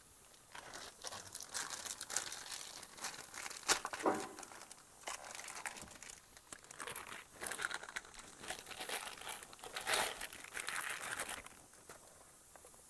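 Clear plastic bag crinkling and rustling as it is handled: the wrapping of a new automatic transmission filter being opened. It goes in irregular crackly bursts and stops near the end.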